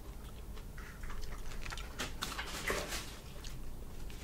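Cooked crawfish shell being cracked and peeled by hand: a run of small irregular crackles and clicks, busiest about halfway through.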